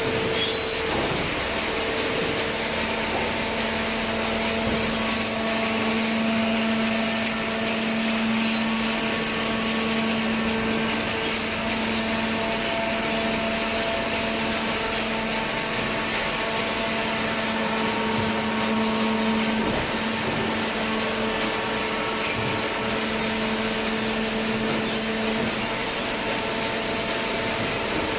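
Horizontal cardboard baler's hydraulic power unit running with a steady machine hum and hiss. A lower hum tone comes in a couple of seconds in and drops out near the end, as the pump takes up and then releases load.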